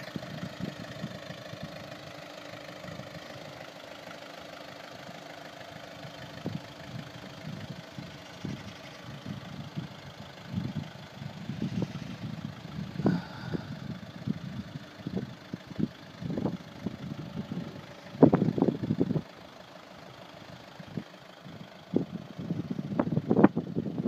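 Volkswagen Caddy van's engine idling with a steady low hum. From about ten seconds in, irregular short knocks and bumps come over it, the loudest a cluster about three quarters of the way through.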